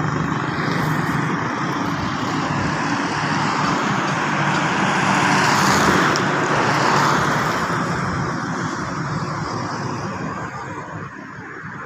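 Road traffic heard from a moving vehicle: a steady engine hum with tyre and road noise, swelling about six seconds in as a car passes close by in the opposite direction, then easing off.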